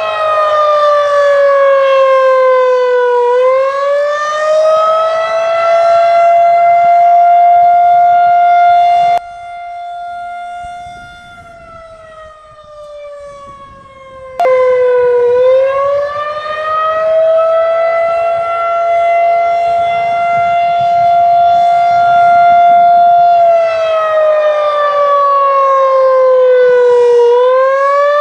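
Federal Signal 2001-130 tornado siren sounding the attack signal: its tone rises, holds and winds down again in repeated cycles. About nine seconds in it drops sharply in volume and coasts down in pitch, then comes back loud about five seconds later and climbs again.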